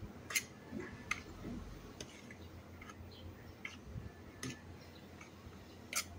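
Metal spoon stirring dry nut and milk powder in a steel plate, with faint, irregular ticks about once a second where the spoon knocks and scrapes against the metal.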